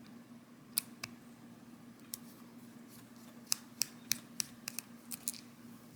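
Small screwdriver clicking against the screw and plastic casing of a Volvo key fob as the screw is turned out: a few scattered sharp ticks, then a quicker run of about three a second.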